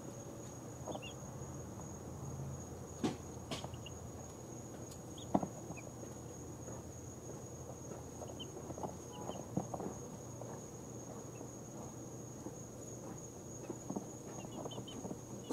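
Two-week-old chicks giving faint, scattered peeps as they settle to sleep, with a few soft taps and rustles as they shift about. A steady, faint high-pitched whine runs underneath.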